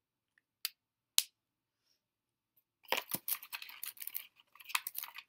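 Two sharp clicks half a second apart, then from about three seconds in a dense crackling rustle of a cardboard product box and tissue paper being handled.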